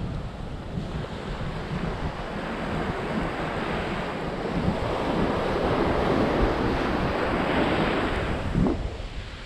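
Wind buffeting the microphone over a steady rush of surf, swelling louder for a few seconds past the middle.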